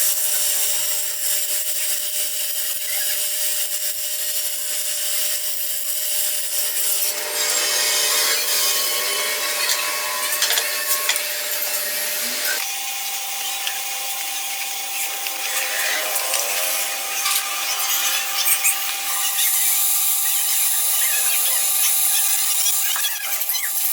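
A tool scraping and sawing against hard material with a steady hiss, over a constant hum whose pitch steps up about halfway through.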